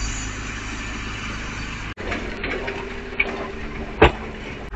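Jeep Wrangler's engine running as it tows a tandem-axle flatbed trailer, picked up by an outdoor security camera's microphone. Light ticking throughout, and a single sharp knock about four seconds in.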